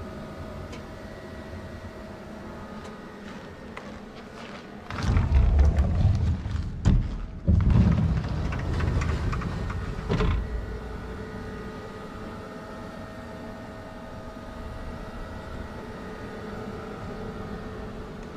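Horizon BQ-280PUR perfect binding machine running with a steady mechanical hum. About five seconds in it breaks into a much louder stretch of rumbling and knocks lasting some five seconds, then settles back to the hum.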